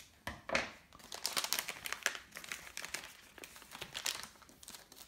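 Anti-static plastic bag crinkling and rustling in the hands as it is opened and the circuit board inside is taken out, with irregular crackles throughout.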